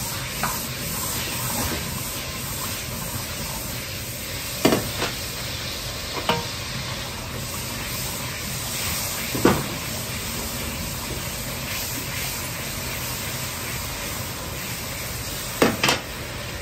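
Butter and soy sauce sizzling in a hot iron wok while a metal ladle stirs it, with a steady hiss. The ladle knocks sharply against the wok several times, two in quick succession near the end.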